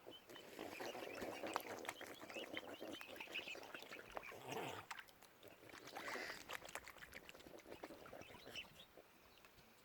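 Waterfowl calling, mixed with many small clicks; the calls come in a busy stretch over the first five seconds and another burst about six seconds in.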